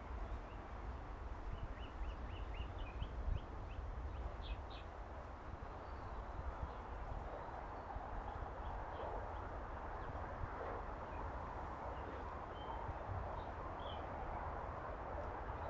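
Small birds chirping in short, scattered calls, a quick run of them a couple of seconds in and a few more near the end, over steady outdoor background noise with a low rumble.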